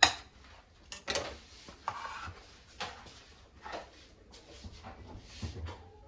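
A knife scraping and tapping in a plastic butter tub, and the tub being lifted off a board: a few separate sharp clicks and knocks, the loudest right at the start.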